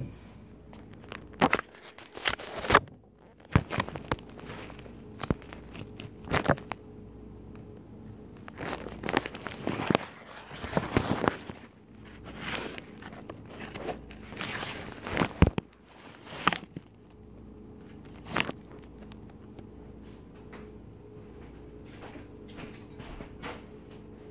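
Kitchen handling noises: a string of knocks, clicks and plastic rustling as things are moved about, busiest for the first 17 seconds and then thinning to scattered light clicks, over a steady low hum.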